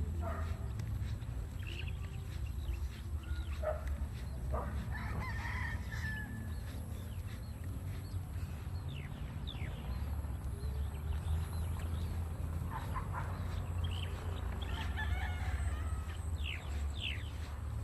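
A rooster crowing, with two longer calls, one about four seconds in and one near the end, among short falling bird chirps, over a steady low rumble.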